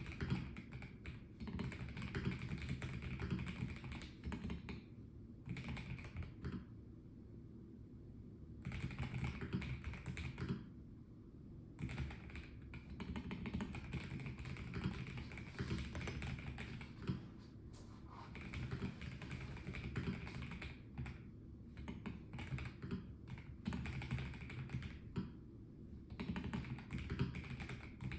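Typing on a Melgeek Mojo84 plastic-case mechanical keyboard: steady runs of key clicks in bursts, with brief pauses between them.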